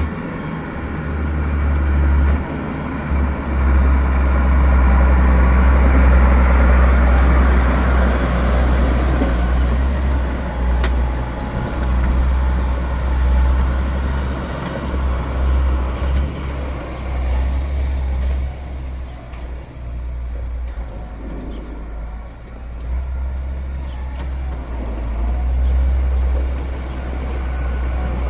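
Heavy farm vehicle engine running steadily with a deep low rumble, louder and fuller in the first half.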